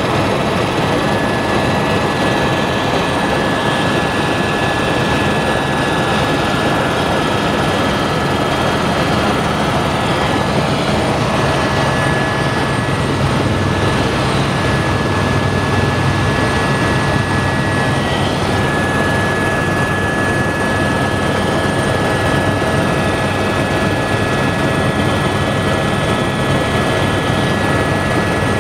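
Tour helicopter in flight, heard from inside the cabin: a steady, loud rush of engine and rotor noise with a steady whine on top.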